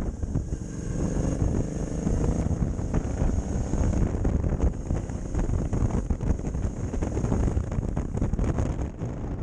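Wind buffeting the microphone of a moving motorcycle, with the bike's engine running underneath; the engine note rises in the first couple of seconds as it pulls away.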